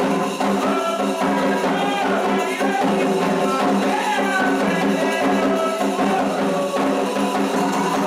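Candomblé toque for Ogum: atabaque hand drums and percussion playing a steady rhythm while voices sing the chant.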